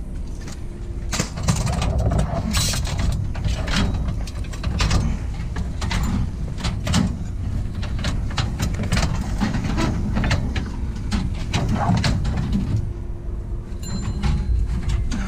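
Repeated clanks and knocks of scrap metal being handled and pried at, over a steady low rumble.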